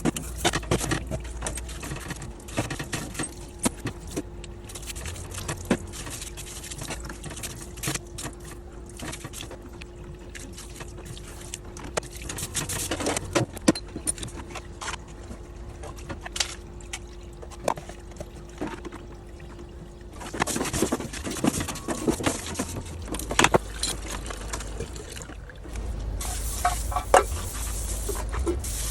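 Scattered clicks and clinks of metal parts and tools being handled during disassembly of a GM power steering pump. A faint steady hum runs under them and stops about two-thirds of the way in, after which the handling noise gets denser and louder.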